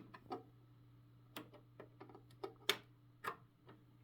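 Scattered light clicks and taps from handling a USB charging cable as it is plugged into a computer, about half a dozen at irregular spacing, over a steady low hum.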